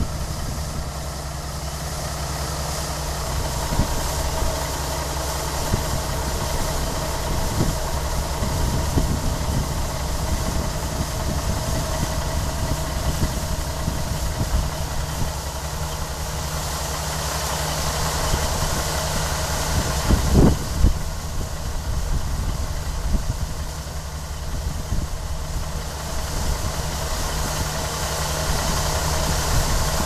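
Diesel farm engine running steadily while a grain cart's unloading auger pours wheat into a semi's grain trailer, over a steady hiss; a brief thump about twenty seconds in.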